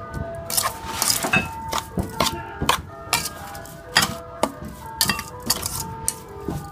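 Metal utensil knocking and clinking against the side of an aluminium pot while leafy vegetables are tossed and mixed, in irregular strikes about twice a second. Background music with held notes plays throughout.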